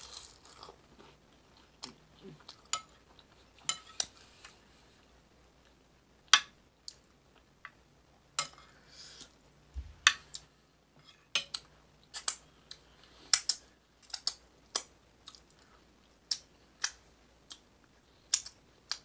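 Close-miked mouth sounds of eating chili: wet chewing and sharp, irregular smacking clicks, at times several a second.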